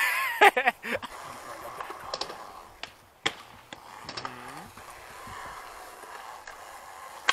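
Skateboard wheels rolling on concrete, a steady rushing sound, with a few sharp clacks of the board. A short burst of voice at the very start and a brief vocal sound around four seconds in.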